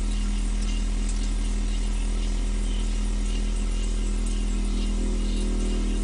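Refrigerator running with a steady low electrical hum, heard from inside the closed fridge compartment, with faint light ticking over it.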